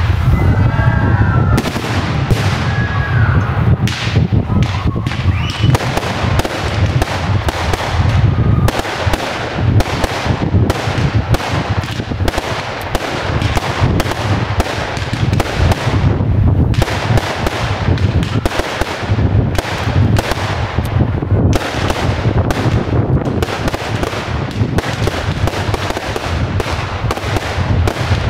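Professional fireworks display fired from one position: a dense, rapid, unbroken run of launch reports and bursting shells, many bangs a second.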